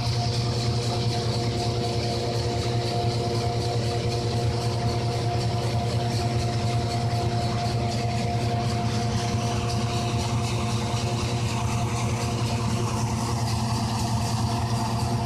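Tractor-driven hazelnut thresher running steadily: a constant low engine drone with a few steady higher tones from the machine over it.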